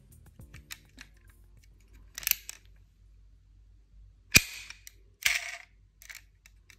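Handling sounds from a diecast toy BMW 8 Series model: small clicks as its opening doors are worked, one sharp click about four seconds in the loudest, with a brief scrape a second later and a few faint ticks near the end.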